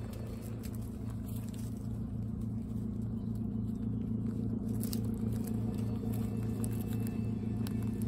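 A steady low mechanical hum, growing slightly louder partway through, with faint crunching from guinea pigs chewing dry pellets.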